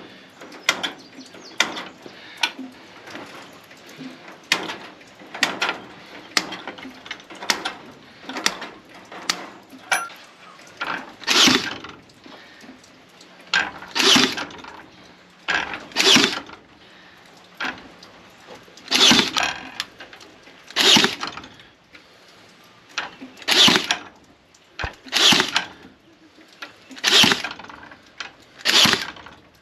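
Small clicks and snaps of hand tools on wire mesh, then, from about eleven seconds in, a battery-powered nail gun firing about nine times, roughly two seconds apart, each shot a short motor whir ending in a sharp crack as it fastens wire mesh to a wooden door frame.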